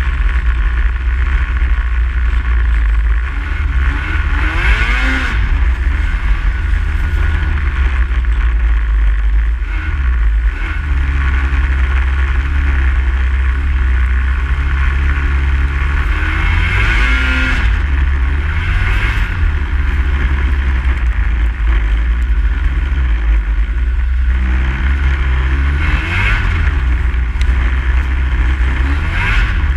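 Snowmobile engine running while riding, under a heavy low rumble. The engine note climbs in pitch three times as the sled speeds up.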